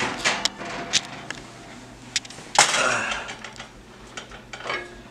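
Clicks and knocks of a glass-lidded casserole dish and the metal oven rack as the dish is slid out of the oven and set on the stovetop. One louder knock comes about two and a half seconds in.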